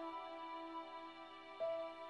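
Slow, quiet background film music. A held chord dies away at the start, soft sustained tones linger, and a single new note enters near the end.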